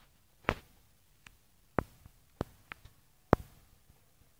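A series of sharp, short clicks and knocks at uneven intervals, about seven in four seconds, the loudest about half a second in and near the end.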